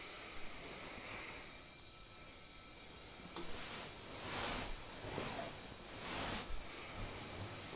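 Soft swishes of kimono and hakama cloth as a kneeling person shifts and leans forward on tatami, three of them about four, five and six seconds in, over a steady hiss.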